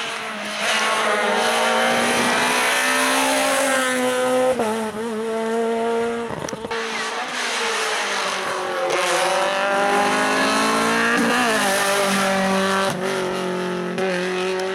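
Rally car engine at high revs, accelerating hard with the pitch climbing and then dropping at each of several gear changes.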